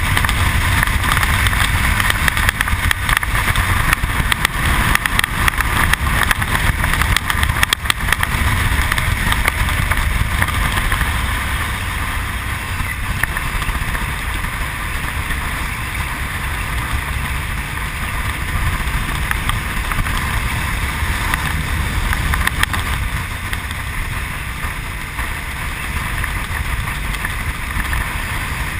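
Honda VTR1000's V-twin engine running as the motorcycle rides along at steady speed, mixed with heavy wind rush on the microphone. It is louder for roughly the first ten seconds, then settles a little lower.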